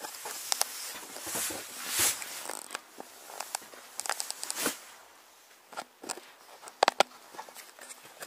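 Rustling of a heavy cloth cover being pulled off the top of a wooden beehive, with scraping and handling clicks, and two sharp knocks about seven seconds in.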